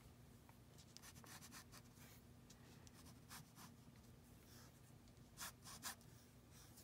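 Faint scratching of an ink pen drawing short lines on paper: a scatter of quick strokes, the two loudest a little after five seconds in.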